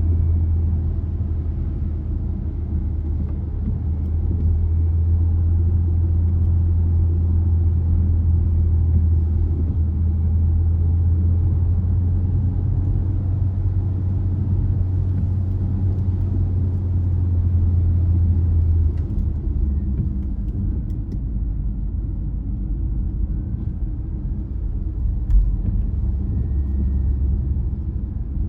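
Car driving, a steady low rumble of engine and road noise. A strong low hum drops away about two-thirds of the way through, and there is a single short bump near the end.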